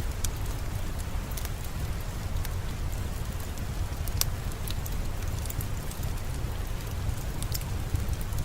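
Steady rain falling, a constant hiss with a low rumble, with scattered sharp crackles of a wood fire popping at irregular moments.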